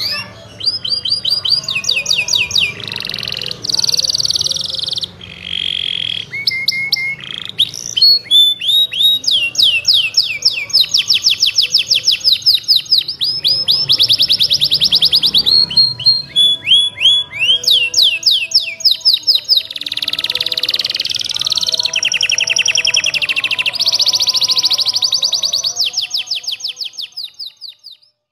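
Domestic canary singing a long, high-pitched song of fast rolling trills and rapidly repeated chirps, changing phrase every few seconds. It fades out near the end.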